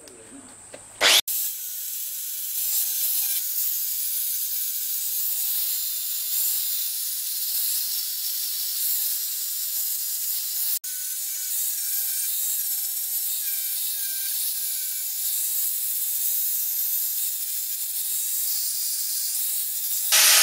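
Angle grinder with an abrasive disc dressing the welds on a stainless steel sheet-metal burner. It starts about a second in as a steady grinding hiss with a thin, wavering motor whine, and drops out briefly about halfway.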